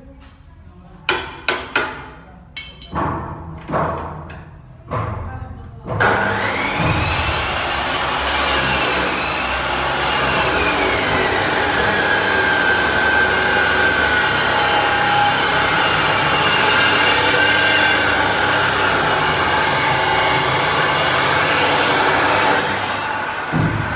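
Abrasive cut-off wheel of a chop saw cutting through square iron tubing: first a few sharp metal knocks as the bar is set at the vise, then about six seconds in a loud, harsh grinding with a whine that wavers in pitch as the wheel bites, running until it stops near the end.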